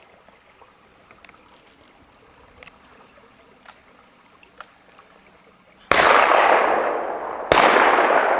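Two shotgun shots at incoming ducks, about a second and a half apart, each trailing off in a long echo.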